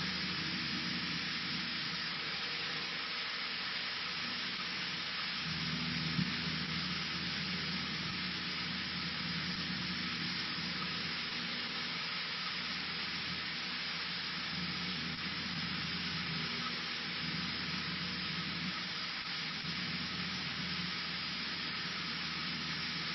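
Cessna 152's four-cylinder engine and propeller running steadily, heard inside the cabin as an even rushing noise over a low hum. There is a brief click about six seconds in.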